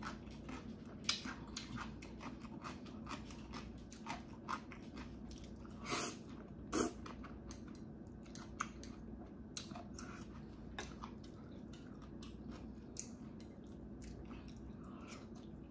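Close-miked chewing of jjajangmyeon (black bean noodles): a continuous run of small mouth clicks, with two louder short noises about six and seven seconds in.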